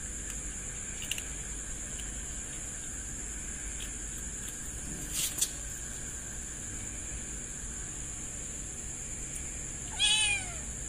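A kitten meows once, briefly, near the end, over a steady hiss. A single sharp click comes about halfway.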